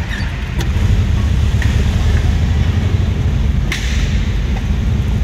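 Volkswagen Kombi van's engine running as the van drives slowly, heard from inside the cab: a steady low rumble that grows louder about a second in. A few light clicks from the cab, the sharpest about three-quarters of the way through.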